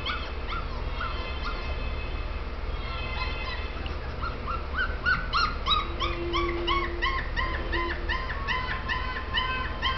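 Puppy whimpering and crying on a movie soundtrack: a string of short, high-pitched cries, sparse at first, then quickening to about three or four a second from halfway on, over a steady low hum.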